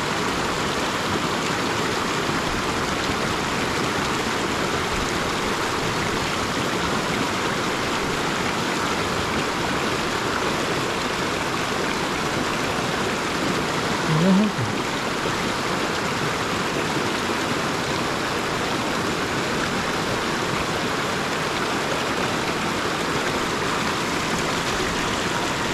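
Shallow mountain river rushing and churning over boulders in a small rapid, a steady, even rush of water.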